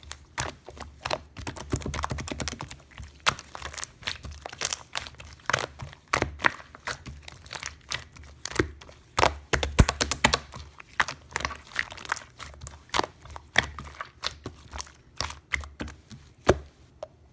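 Close-up handling noise: dense, irregular crackles and sharp pops, as of a crinkly or crunchy material being squeezed and pressed by hand, over a faint low hum.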